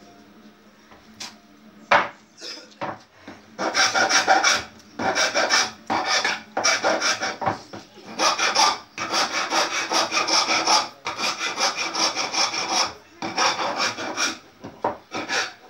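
A hand tool scraping across wood in a run of strokes, each about a second long with short gaps between them: a woodworker shaping a board by hand. A few light knocks come first, before the strokes begin about four seconds in.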